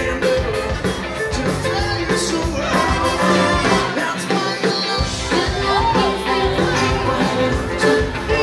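Live wedding band playing upbeat dance music with electric guitar, bass and drums. About four seconds in the bass and drums drop out for roughly a second, then come back in.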